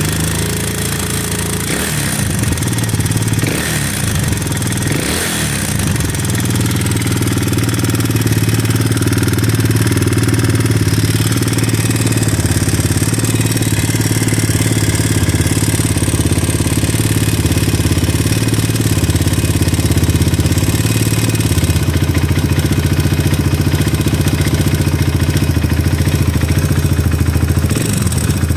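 Enduro motorcycle engine running with a knocking clatter, its revs rising briefly a few times in the first several seconds, then held steady. The owner says the knock sounds like the valves even though they are set to 0.06/0.08 mm clearance. He says the idle hunts, and a crackling comes from the right side near the cylinder head as soon as the revs rise.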